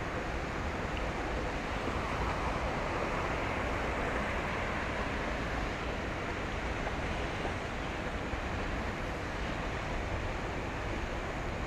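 Steady rushing noise of wind and water, even throughout, with no distinct engine note or other events.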